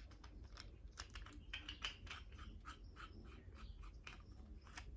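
Faint, irregular clicks and light rustling of hands handling the plastic parts of a newly unboxed selfie-stick tripod.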